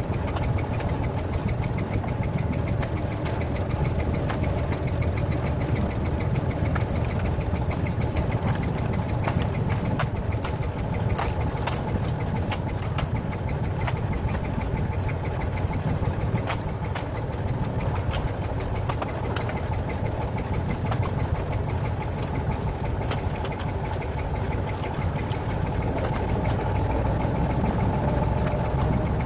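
Narrow-gauge diesel locomotive running steadily under way: a constant low engine drone with frequent irregular sharp clicks and rattles over it.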